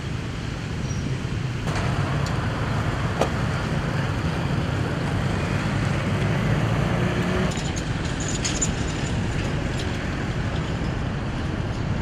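Street traffic noise: a steady hum of road vehicles and engines, changing in character about two seconds in and again near eight seconds.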